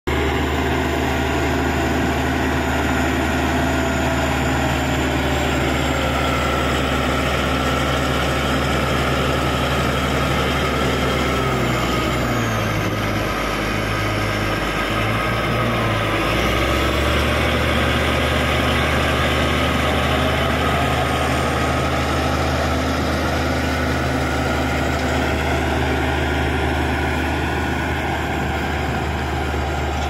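Caterpillar D6G crawler bulldozer's diesel engine running loud and steady as the machine pushes wet soil, with a wavering higher whine over it. The engine note dips and wavers for a few seconds about halfway through, then returns to its steady pitch.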